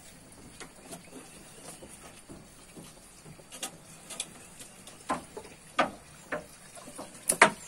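Bamboo pole knocking and tapping against a woven bamboo wall: scattered sharp knocks, sparse at first, then coming more often, with two loud ones close together near the end.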